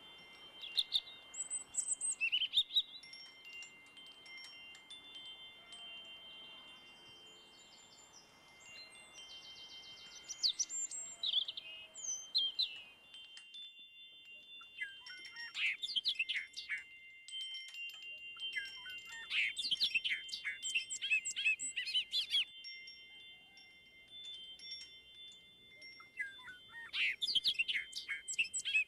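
Wind chimes ringing in several steady high tones, with bouts of quick, high chirping birdsong that come and go several times.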